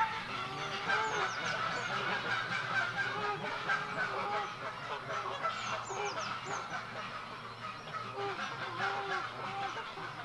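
A flock of geese honking, many short calls overlapping throughout, with a few thin high bird chirps and a steady low hum beneath.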